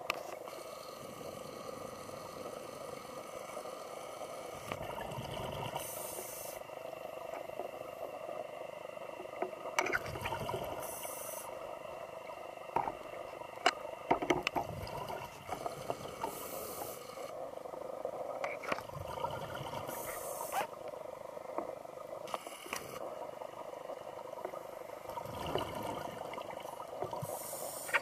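Scuba breathing heard underwater: bursts of exhaled regulator bubbles rushing every four to five seconds over a steady muffled hum, with a few sharp knocks near the middle.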